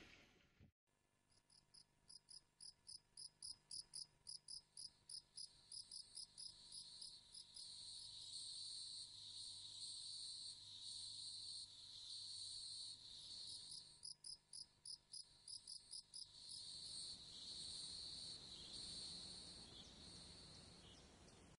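Faint crickets chirping: runs of short high chirps, about two a second, alternating with longer held trills.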